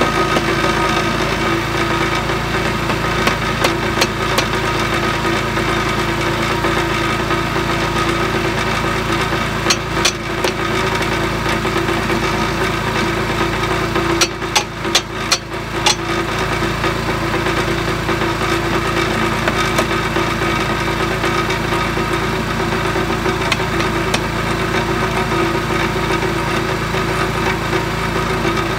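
Trencher's small engine idling steadily, with sharp mallet blows on the arm's hinge pin: a few scattered strikes, then a quick run of about five about halfway through.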